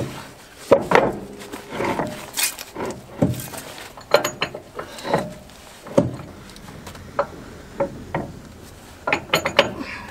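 Irregular metal knocks and clinks, a dozen or so, some in quick clusters, as the pin, washer and snap ring are fitted at the end of a backhoe outrigger's hydraulic cylinder.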